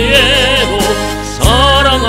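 A baritone singing a hymn with wide vibrato over an instrumental accompaniment of sustained bass notes and chords; a new chord comes in about one and a half seconds in.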